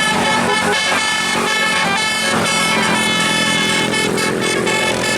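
Indonesian bus 'telolet' horn: a multi-tone air horn playing a tune of shifting notes.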